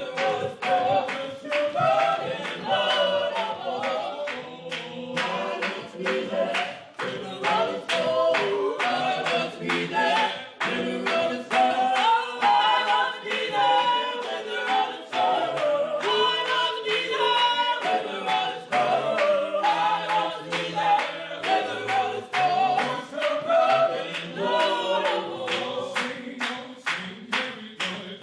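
Gospel choir singing a cappella, many voices in harmony, with steady hand-clapping keeping time.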